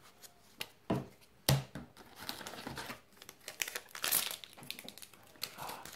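Force of Will trading cards being flipped through, with two sharp card snaps early, then a stretch of crinkling from a foil booster-pack wrapper being handled.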